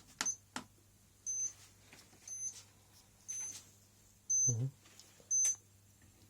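A short, high-pitched squeak from an engine repeating about once a second, six times, over a faint steady low hum.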